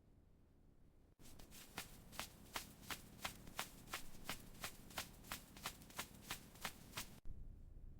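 A steady run of light, sharp clicks, about three a second, starting about a second in and cutting off abruptly near the end.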